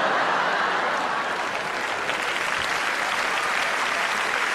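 A large live audience applauding steadily, many hands clapping together in a dense, even patter.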